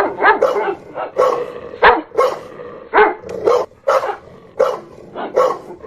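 A dog barking loudly, in repeated short barks at an irregular pace of roughly two a second.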